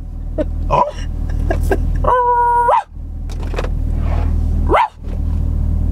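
Steady low rumble of a car running, heard inside the cabin, with a person's short whimpering sounds and one held whine lasting under a second, about two seconds in.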